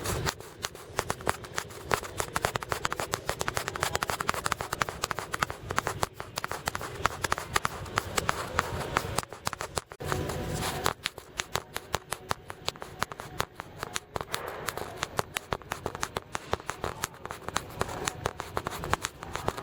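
Rustling and crinkling of packaging being handled, made up of dense, irregular small clicks and crackles, with a short pause about ten seconds in.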